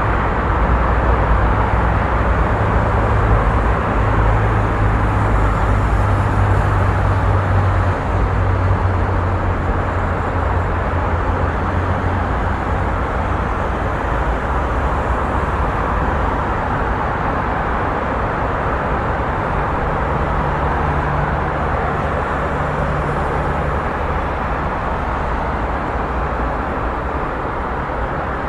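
Busy street ambience: steady traffic noise from passing vehicles, with the low hum of engines idling or running nearby.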